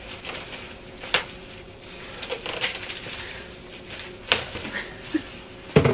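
Thin plastic carrier bag crinkling and rustling as it is pulled at and worked open, with two sharp clicks, one about a second in and one about four seconds in.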